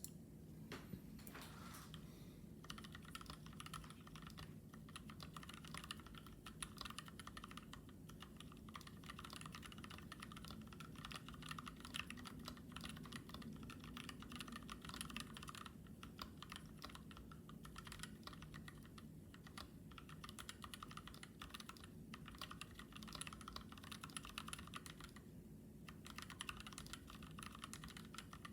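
Fast, continuous typing on a KBD67 MKii mechanical keyboard with a brass plate, lubed Gazzew Blue Ice/UHMWPE-stem frankenswitches and PBT keycaps, with a few short pauses.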